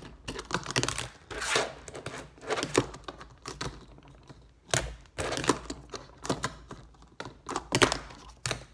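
A fingerboard clacking and scraping against the edge of a cardboard box and the tabletop: irregular runs of small clicks and taps from its wheels and deck, with short scrapes between them. The loudest clacks come near the end.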